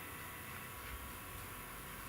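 Faint steady background hiss with a low hum, no distinct event: room tone.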